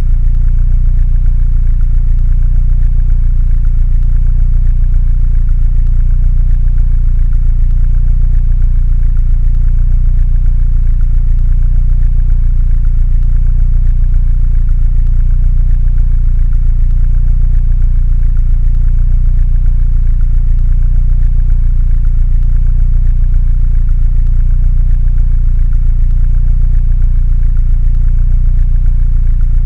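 Mini Cooper engine idling steadily: a low, even running with a fast regular pulse that never changes pace.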